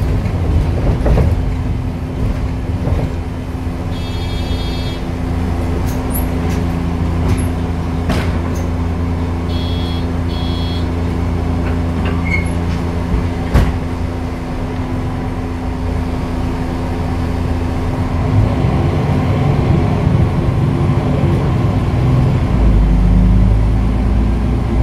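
MAN NL263 Lion's City city bus's six-cylinder diesel engine and drivetrain running steadily as the bus drives along, heard from inside behind the driver. There are a few short electronic beeps about four and ten seconds in, and the low rumble grows heavier near the end.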